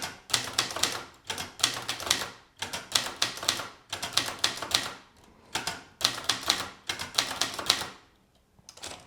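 1977 Brother Deluxe 220 typewriter keys striking the platen in short bursts of a few strokes each, about one burst a second, as the word "für" is typed over and over. The typing stops about eight seconds in.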